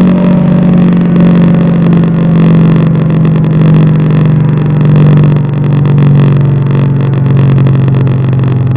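Siren winding down: one low, loud tone that slowly and steadily falls in pitch.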